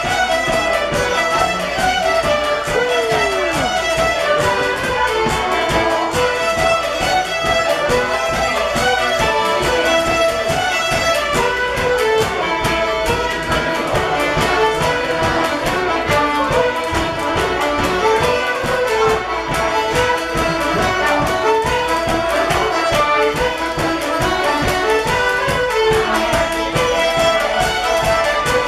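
Several fiddles played together live, running through a tune without a break.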